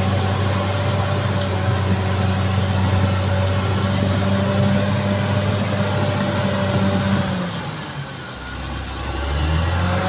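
Caterpillar D6R XL bulldozer's diesel engine running steadily under load, then throttling back about seven seconds in, its note dropping, and revving back up near the end.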